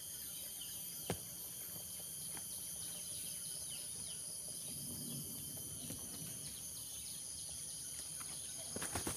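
A steady, high-pitched insect chorus with a few faint bird chirps, and one sharp click about a second in. Rustling and scuffing start just before the end.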